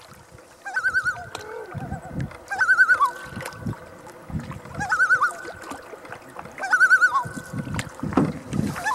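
Common loon giving its tremolo, a quavering laugh-like call repeated about every two seconds. It is the loon's warning or alarm call at a canoe too close by. Low thuds sound beneath the calls.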